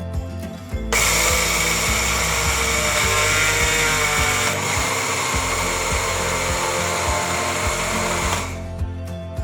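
Electric blender running for about seven and a half seconds, switching on and off abruptly, with a steady high whine: grinding rice into the batter for tteok.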